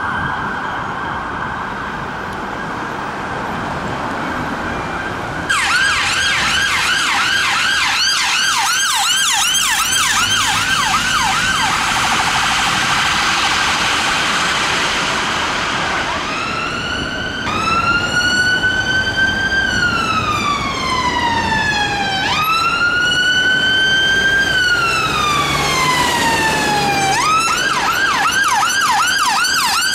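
Emergency vehicle sirens. First a steady siren tone, then from about five seconds in a London Ambulance Service Volkswagen Tiguan fast response car's siren runs a fast yelp, switches to two slow wails that rise and fall, and goes back to the fast yelp near the end.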